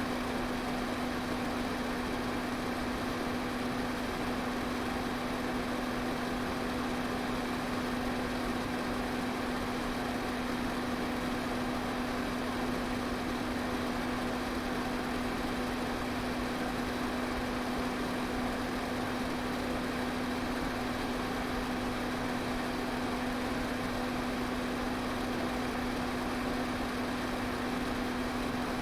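Fan running steadily: an even rush of air with a constant low motor hum underneath.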